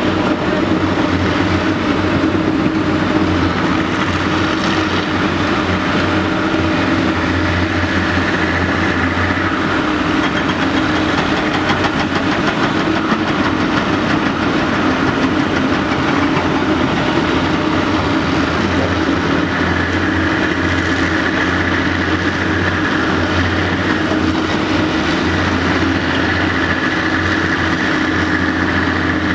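Caterpillar 385BL ME excavator's diesel engine running steadily as it digs and swings, with a higher whine that fades out for a while in the middle and comes back about twenty seconds in.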